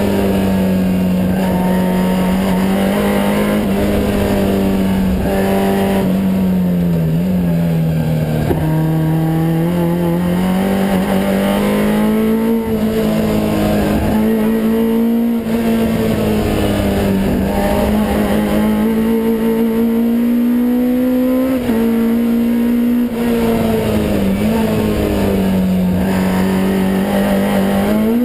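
Vauxhall Nova's 258 bhp naturally aspirated race engine on throttle bodies, heard from inside the car under hard driving on track. Its pitch rises and falls with the revs, with brief breaks and dips at the gear changes.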